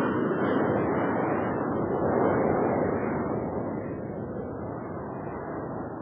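Airplane engine noise in flight: a steady rushing that swells a little about two seconds in and eases off over the second half.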